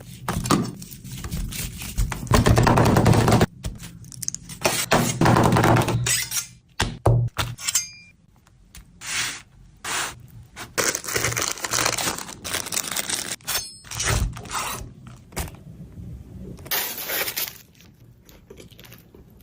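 Food being prepared and handled: an irregular run of knocks, scrapes and crackling, with quieter gaps in between.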